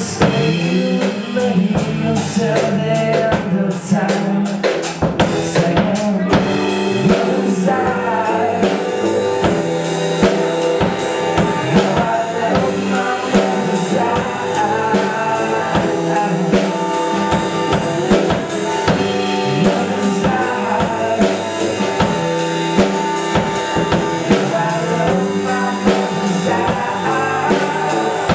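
Live band playing: a drum kit keeps a steady beat under electric and acoustic guitars and bass guitar.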